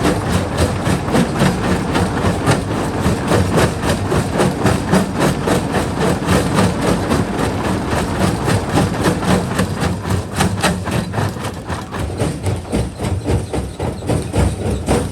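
Jaw rock crusher crushing rock: a fast, irregular run of knocks and cracks from stone breaking in the jaws, over the steady drone of the machine running.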